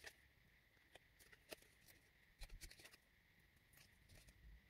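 Near silence with faint, scattered rustles and light taps of cardstock being folded and pressed together by hand. A faint steady high tone runs underneath.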